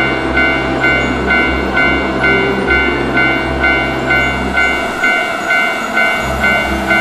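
Japanese railroad crossing warning bell ringing its steady "kan-kan" at about two strokes a second, over the low rumble of a passing train that breaks off briefly about five seconds in.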